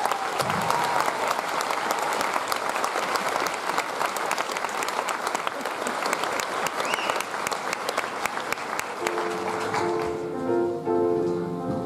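Audience applause, many hands clapping. About nine seconds in, the clapping thins as held notes of instrumental music come in.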